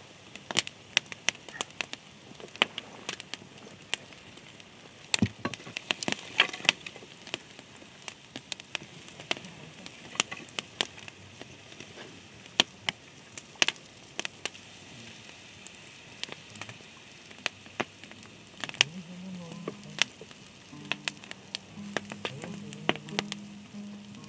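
Irregular sharp crackles and pops over a faint steady hiss. A low pitched hum comes in near the end.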